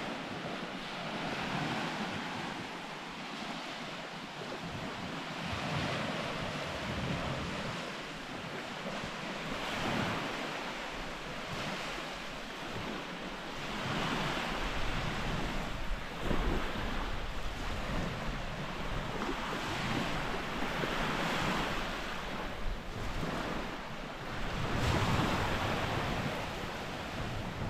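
Small waves washing onto a sandy shore, swelling and easing every few seconds. From about halfway through, wind rumbles on the microphone.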